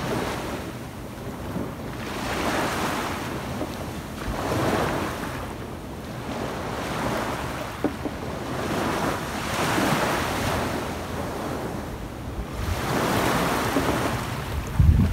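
Small waves breaking and washing up a sandy beach, the surf swelling and fading every two to three seconds. Near the end, wind buffets the microphone.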